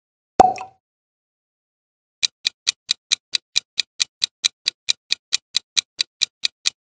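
Quiz countdown-timer ticking effect: quick, even ticks, about four to five a second, starting about two seconds in. Before it, about half a second in, comes a single sharp hit with a brief ringing tone as the next question appears.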